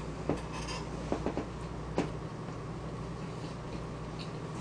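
A few light clicks of a fork against a plastic takeout tray of food in the first two seconds, over a steady low hum.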